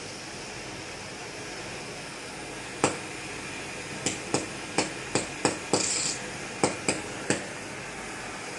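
Sharp knocks of work on an installation: one knock about three seconds in, then a run of about nine irregular knocks over the next few seconds, with a short hiss in the middle, over a steady background noise.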